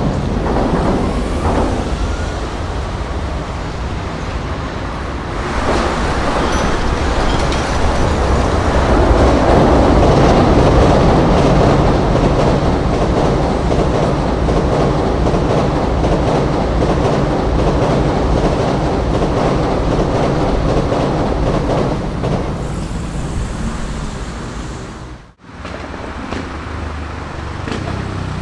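Shinkansen bullet train running over the elevated concrete viaduct, its wheels clattering over the rail joints of the scissors crossing. The clatter is loudest around ten seconds in and eases after about twenty seconds. After a sudden cut near the end, steady road traffic is heard.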